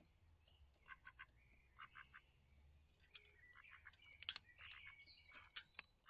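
Faint duck quacks in short runs of two or three, joined in the second half by other birds' chirps and whistles and a few sharp clicks.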